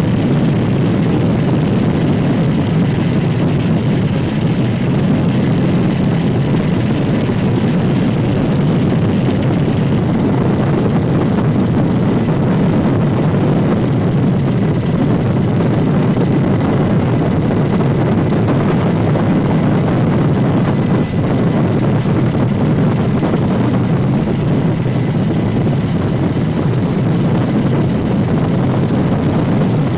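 Steady, unbroken drone of an aircraft's engine and airscrew, heard from aboard the aircraft, with a faint steady whine over it.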